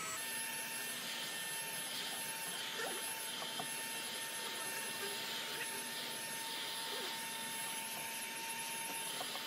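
Electric heat gun running steadily: its fan blows a constant rush of hot air with a steady motor whine. It is heating a thin wooden strip bent around a curved form.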